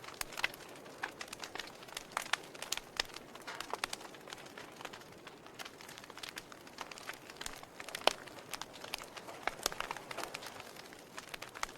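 Wood logs burning in a fireplace, crackling with irregular sharp pops and snaps over a soft hiss; the loudest snap comes about eight seconds in.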